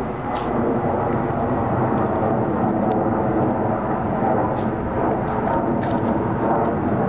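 Twin-engine jet airliner flying overhead, its engines making a steady, continuous noise.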